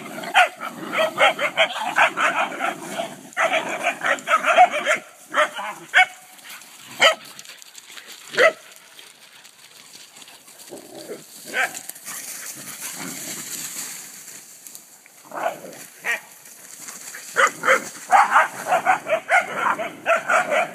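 Several dogs play-fighting, with dense runs of quick barks and growls at the start and again near the end. In the quieter middle there are only a few single barks.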